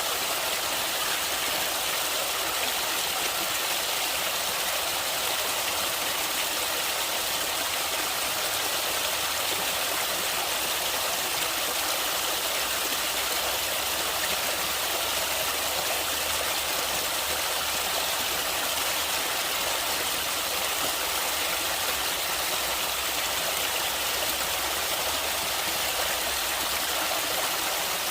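Natural flowing water rushing steadily, a continuous even hiss with no breaks.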